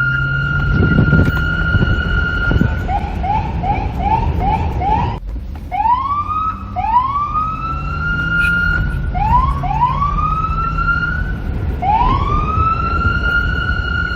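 Electronic police siren changing patterns. It starts on a steady held tone, switches to a fast yelp of quick rising sweeps, cuts out briefly about five seconds in, then climbs in slower rising wails that settle back into a held tone near the end. A low rumble runs underneath.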